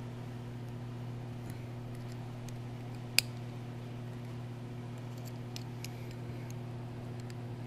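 Small metal clicks and taps of needle-nose pliers working a brush spring into its slot on the motor's brush holder, with one sharp click about three seconds in, over a steady low electrical hum.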